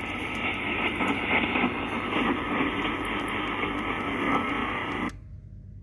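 Hissing, crackling static played back from a Tascam DR-05 digital recorder through a small Altec Lansing portable speaker. It is a paranormal ghost-box or EVP recording answering the question asked of the photo. It cuts off abruptly about five seconds in, when playback is stopped, leaving a faint hum.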